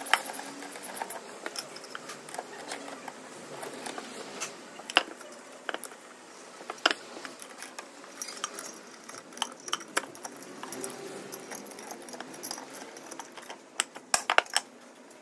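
Car alternator being reassembled by hand: metal parts and a screwdriver clicking and clinking against the housing in irregular sharp taps, with a quick cluster of clinks near the end.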